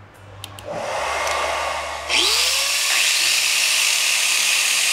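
Corded angle grinders switched on one after the other. There is a click, then the first grinder spins up about half a second in, and a second louder start comes about two seconds in with a rising whine. Both then run steadily at full speed with no load.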